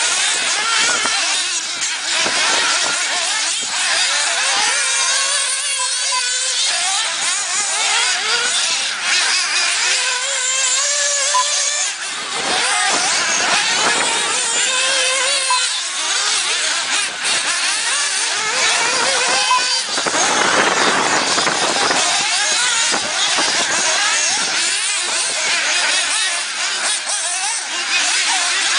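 Several 1/8-scale RC buggies racing, their small nitro engines buzzing high and revving up and down over and over as they accelerate and back off through the corners.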